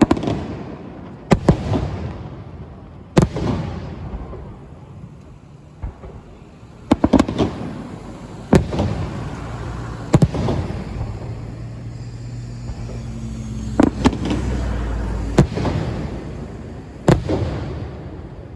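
Aerial fireworks shells bursting: about a dozen sharp booms, some in quick pairs, each followed by a long rolling echo.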